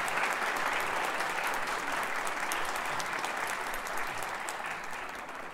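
Concert audience applauding, a dense steady patter of many hands clapping that slowly fades toward the end.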